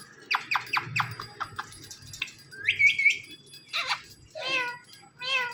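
Indian ringneck parrot calling. It gives a quick run of about five sharp chirps, then a high held note, then a few short calls that bend in pitch near the end.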